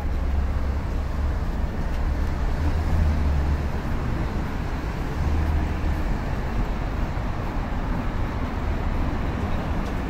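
Steady street traffic noise from passing cars, with a deep low rumble that swells and fades a few times.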